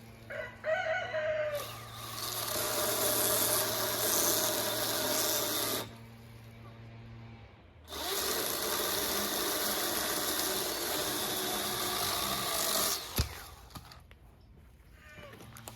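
Milwaukee M12 Hatchet battery pruning saw with a 6-inch bar, cutting through cherry wood in two runs of about four and five seconds with a pause between. A single sharp click follows near the end.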